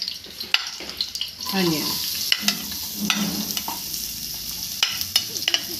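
Chopped onions frying in hot oil with cumin in an aluminium pressure cooker, a steady sizzle that grows stronger once they go in, about a second and a half in. A steel ladle stirring them clinks sharply against the pot several times.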